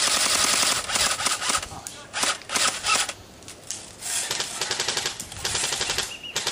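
Airsoft guns firing on full auto in about four long bursts of rapid clicking, the first the loudest.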